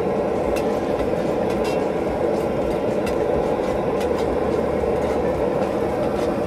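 A metal ladle scrapes and clinks against the inside of a large steel kadai, with a few light ticks. Under it runs a steady rumbling roar, the loudest sound throughout, whose source is not identified.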